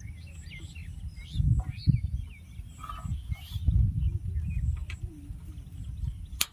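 Small birds chirping intermittently over a fluctuating low rumble, with one sharp click near the end.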